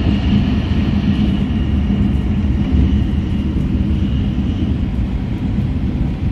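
Inside the cabin of an E6 series Shinkansen cruising at about 316 km/h: a steady, loud, low running rumble with a faint high-pitched hum above it.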